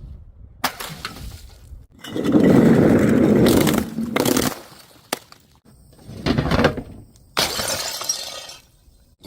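Glass bottles smashing and shattering in several separate crashes one after another, the loudest and longest about two seconds in.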